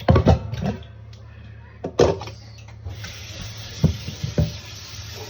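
A series of sharp knocks and clunks of cookware being handled, over a steady low hum. An even hiss comes in about three seconds in.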